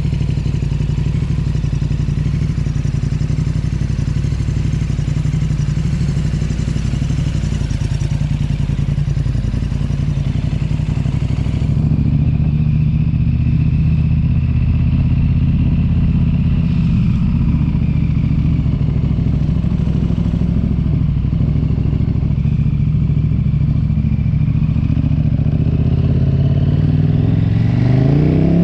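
An engine running steadily at low speed, its pitch starting to rise as it revs up near the end.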